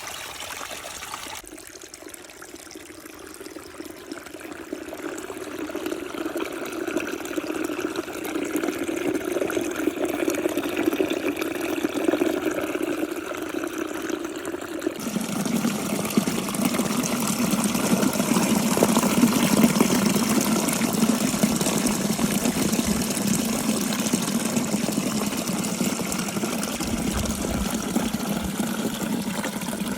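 Small waterfall splashing and running steadily, getting louder over the first half and shifting suddenly in character about halfway through.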